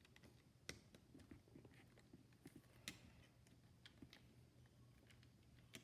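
Faint, scattered clicks of small plastic Lego pieces being handled and pressed together, with a few sharper clicks among them, over a low steady room hum.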